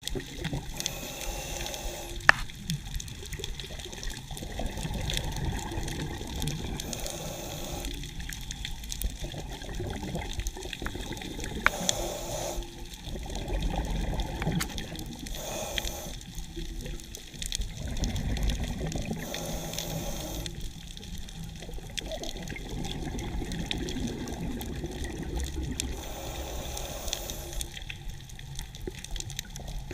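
Underwater sound on a scuba dive: a diver's regulator breathing, with bursts of exhaled bubbles about every four to six seconds over a steady low rumble of water. There are two sharp clicks, the first about two seconds in.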